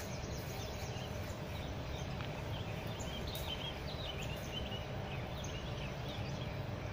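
Small birds chirping repeatedly, busiest in the middle, over a steady low rumble of outdoor background noise.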